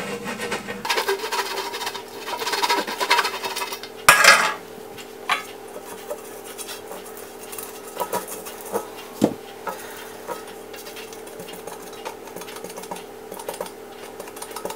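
Silicone pastry brush rubbing grease around the inside of a fluted metal torte pan: soft scraping and brushing on the metal, with one louder clatter of the pan about four seconds in and a few light clicks afterwards.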